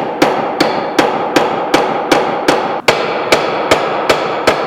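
Wooden mallet gently tapping glued wooden dowels into their holes, a steady run of light strikes at about three a second.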